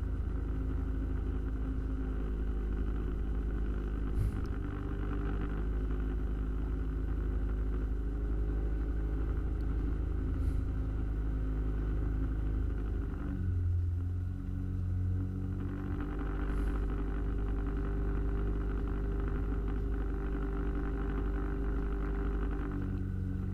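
Outboard motor of an aluminium boat running at low cruising speed, a steady drone. Its note drops about halfway through and shifts back near the end as the throttle changes.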